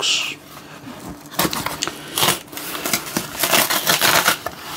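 Sealing tape being ripped off a cardboard box, tearing the paper surface of the cardboard with it, in several short rasping pulls, the longest near the end.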